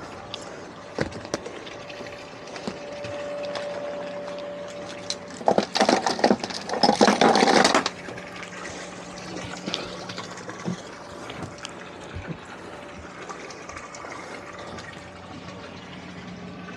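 Salvage pump running steadily while it pumps water out of a swamped deck boat, with water gushing and splashing; a louder rush of splashing water for a couple of seconds about five and a half seconds in. The water keeps coming in about as fast as the pump takes it out.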